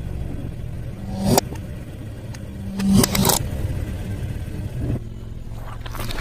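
Two crunchy bites of fried food, about a second in and again about three seconds in, over a steady low rumble.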